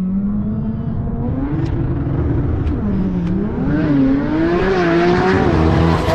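Drag race car's engine holding a steady note, then launching about a second in and accelerating down the strip, its pitch climbing and dropping back at each gear shift, growing louder near the end.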